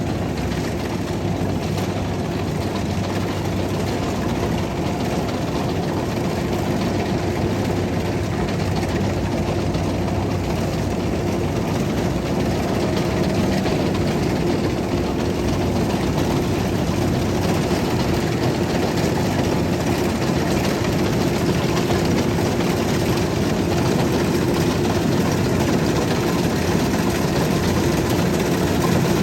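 Kubota DC-93 combine harvester running steadily as it harvests rice, its engine hum and machinery noise even throughout.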